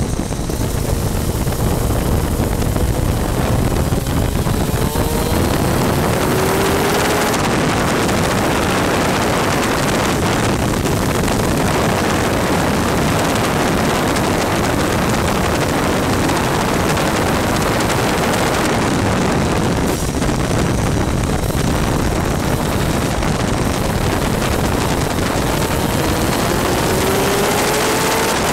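Onboard sound of a superkart's two-stroke engine at racing speed on a wet track, largely buried under a loud rush of wind and water spray on the microphone. The engine note rises as the kart accelerates about five seconds in and again near the end.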